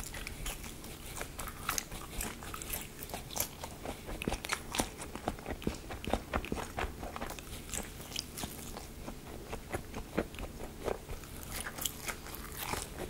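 A person biting into and chewing crispy deep-fried food, a dense run of sharp crunching crackles with short pauses between bites.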